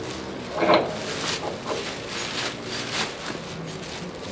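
Motor of a retractable outdoor ceiling awning running steadily as the fabric rolls in, with a short vocal sound about a second in.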